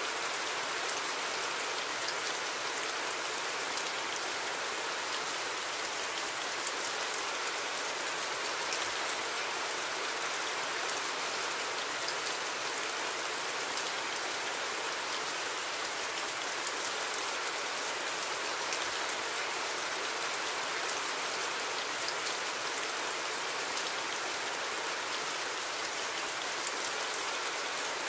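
Steady rain: an even hiss of falling rain with a fine patter of drops, unchanging in level.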